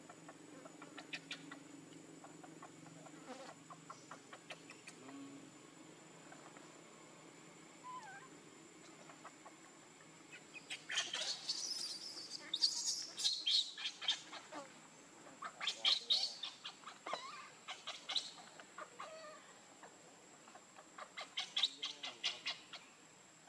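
Baby pig-tailed macaque crying in stuttering, high-pitched bursts, typical of an infant begging its mother for milk. There are three bouts: a long one starting about eleven seconds in, a short one around sixteen seconds and another near the end.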